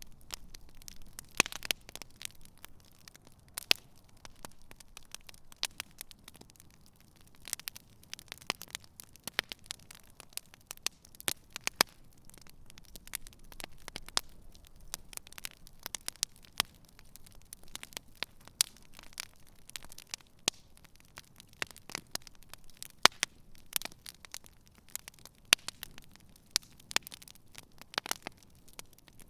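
Wood campfire burning, crackling with irregular sharp pops and snaps over a faint low rumble.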